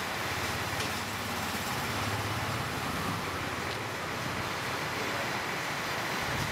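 Steady street traffic noise: an even hiss with a low rumble underneath.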